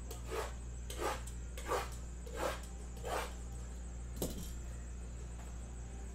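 Trading cards and packs being handled: a soft swish about every 0.7 s, five times, then a sharp click about four seconds in, over a steady low hum.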